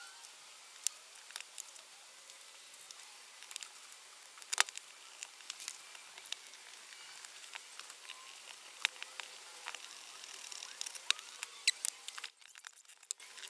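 Scattered small clicks and taps of plastic cordless-drill parts, the gearbox and housing, being handled and fitted together by hand, over a faint steady hiss. The sharpest click comes about four and a half seconds in.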